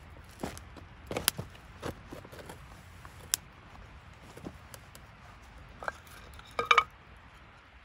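Camp cookware and utensils being handled, giving scattered light knocks and clinks, with a quick run of ringing metallic clinks near the end.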